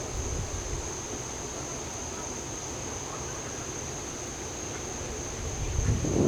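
Wind rumbling on the microphone, swelling near the end, over a steady high-pitched insect drone.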